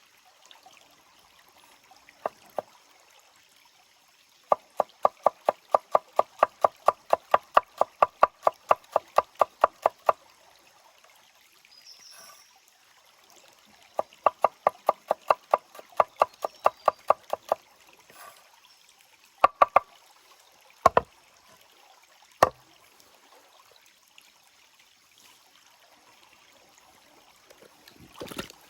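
Rapid, even knocking, about four strikes a second, in two runs of several seconds each, followed by a few single knocks, over a faint running stream.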